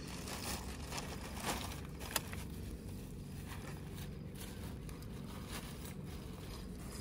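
Faint rustling of a plastic bag and small clicks and scrapes of skewers being handled, over a steady low rumble. The sharpest click comes about two seconds in.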